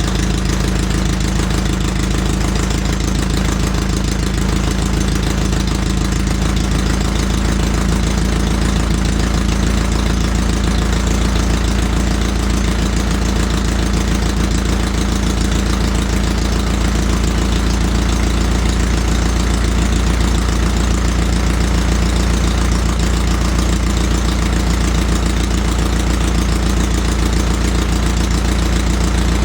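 Farmall MD tractor's four-cylinder diesel engine idling steadily after a cold start.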